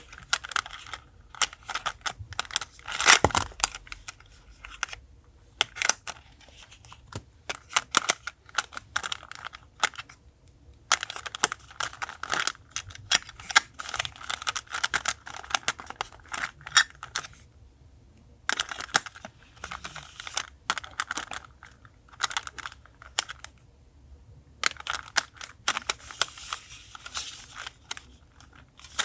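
Paper being handled for journal collage: crinkling and rustling with many small clicks and taps, in bursts separated by short pauses.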